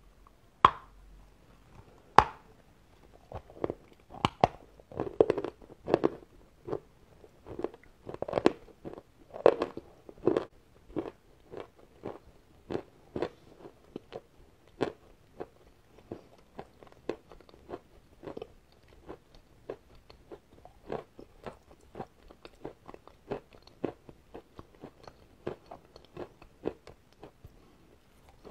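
A person biting into a block of sawn chalk topped with a layer of Turkestan paste: two sharp crunchy snaps in the first couple of seconds, then steady crunchy chewing, about two crunches a second, growing softer after about ten seconds.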